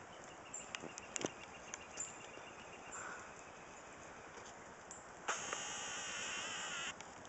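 Faint outdoor background with a few small clicks, then a camera lens motor whirring for about a second and a half, starting and stopping abruptly.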